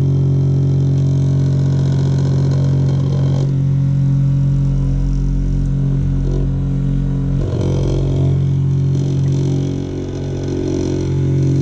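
Homemade flat lap machine running: an upright treadmill motor spinning a machined backing plate and lap disc, giving a steady hum made of several even tones. A deeper rumble swells under it for a few seconds in the middle.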